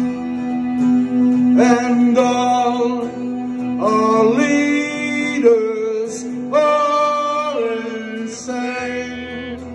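Live music: acoustic and electric guitars playing together, with a male voice singing four long, held phrases over them.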